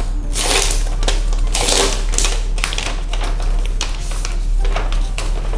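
Plastic protective wrap being pulled off a new laptop, crinkling and rustling in a series of swishes about once a second.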